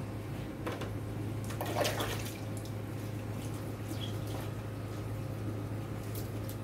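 Water splashing and dripping as a plastic dipper is handled on a wet tiled floor, with a few light clatters; the loudest splash comes about two seconds in. A steady low hum runs underneath.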